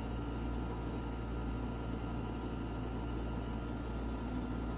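Steady low background hum with a faint even hiss: room tone, with no distinct events.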